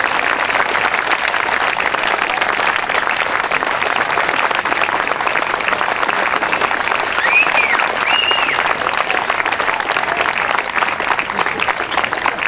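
Crowd of spectators applauding steadily. Two short high-pitched calls rise and fall above the clapping about seven and eight seconds in.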